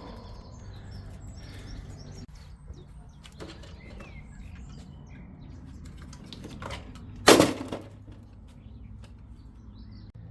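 Scattered light clicks and knocks of hand work on a car's front-end panels over a steady low background, with one loud clatter about seven seconds in.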